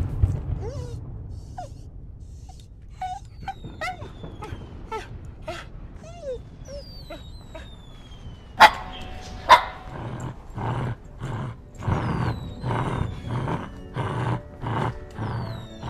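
Dog whimpering faintly, then two sharp bangs like firecrackers about nine seconds in, after which the dog barks over and over, about three barks every two seconds.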